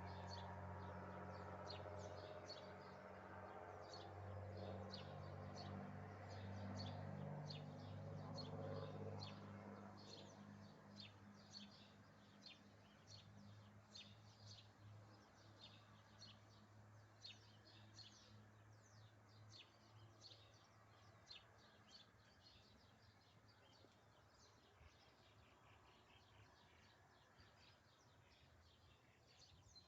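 Faint outdoor birdsong: many small birds chirping in quick short notes all through. A low steady hum underneath fades away about a third of the way in.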